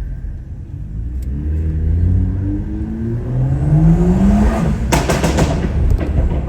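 Tuned BMW engine pulling hard under acceleration, its note rising for about three seconds. It is followed by a rapid burst of exhaust pops and crackles as the revs come off, with a couple more pops just before the end.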